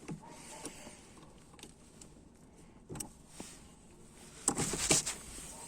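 Scattered small clicks, then a louder metallic rattle about four and a half seconds in, from a wrench working on the car battery's ground terminal as the battery is disconnected.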